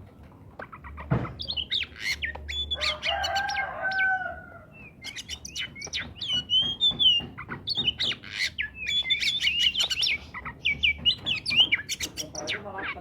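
Oriental magpie-robin singing in full voice: a fast run of sharp whistled notes and quick rising and falling sweeps mixed with clicks, with a knock about a second in.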